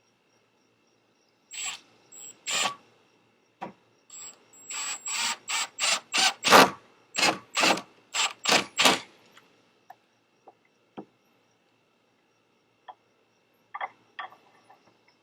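Tool work on a wooden gate latch: a run of about a dozen short, sharp strokes, roughly two a second, followed by a few faint scattered clicks.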